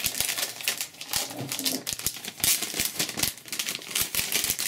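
Thin clear plastic protective film crinkling as it is peeled and pulled off a new aluminium Apple Wireless Keyboard, with many small clicks and taps from the keyboard being handled.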